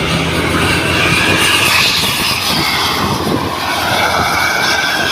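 A large bus passing close at speed: a loud, steady rush of engine, tyre and wind noise, with a low hum that stops about a second in.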